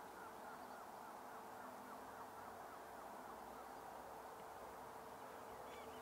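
Faint, continuous chatter of a distant flock of waterbirds, with many small calls blending together over a steady low hum.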